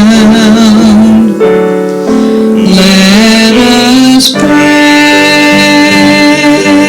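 A slow gospel hymn sung with piano accompaniment, the voice holding long notes with vibrato.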